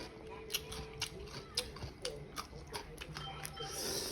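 Close-up eating sounds: a string of sharp wet clicks and smacks from chewing food, over faint background voices or music.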